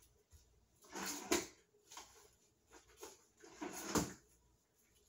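Household handling noise: two short bursts of rustling, each ending in a sharp knock, one about a second in and one near four seconds in.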